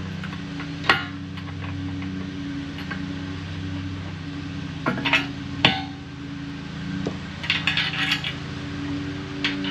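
Sharp metal knocks and clinks as a ratchet head is used like a hammer to tap steel parts of a tackling sled together. There is a single knock about a second in, two more around five seconds, and a quick run of light clinks near the end, over a steady low background tone.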